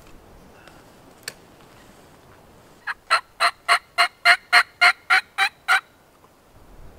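A run of about a dozen turkey yelps, evenly spaced at about four a second, after a single sharp click.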